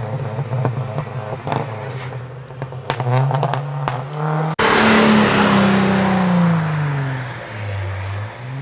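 Rally car engines at full effort: one car accelerating away, its note rising, with sharp cracks; then, after an abrupt cut about halfway, a second car goes by loud and close, its engine note falling steadily before starting to rise again near the end.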